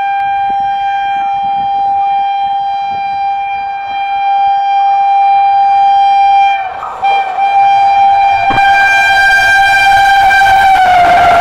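Indian Railways WAP-4 electric locomotive's horn sounding one long, loud note, broken briefly about two-thirds of the way through. Near the end the pitch drops slightly as the train's rush grows louder.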